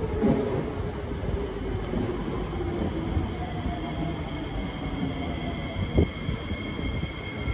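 Kawasaki & CSR Sifang C151B metro train arriving at the platform and slowing, its motor whine falling steadily in pitch over the rumble of the wheels. There is a sharp knock about six seconds in.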